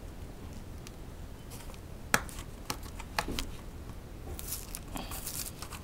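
Fingers picking and scratching at packing tape on a cardboard box: a few sharp ticks in the middle, then scratchy rustling near the end as the tape starts to lift.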